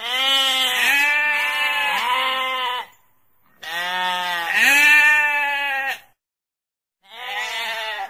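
Sheep bleating: three long, wavering calls with short silent gaps between them.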